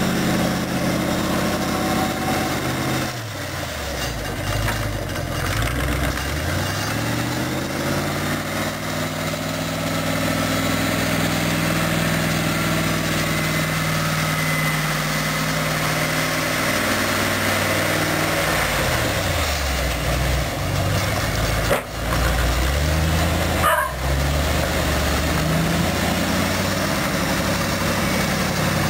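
The Chrysler 318 V8 of a homemade articulated tractor running as it plows snow. Its revs fall away and climb back up twice.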